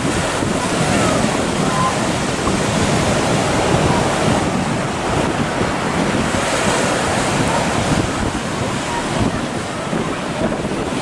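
Ocean surf breaking heavily, a steady rushing wash, with wind buffeting the microphone.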